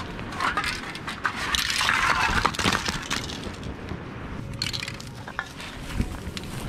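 Aerosol spray paint cans clattering and clinking against one another as a bagful is tipped out onto dry ground, the thickest clatter about two seconds in, then a few single knocks of cans being set down.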